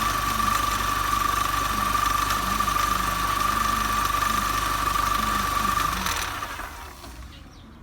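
Supercharged 1.6-litre four-cylinder engine of a Mini Cooper S (R53) idling with a steady high-pitched whine. This whine is the abnormal noise being recorded. About six seconds in the whine stops and the engine noise dies away, as when the engine is switched off.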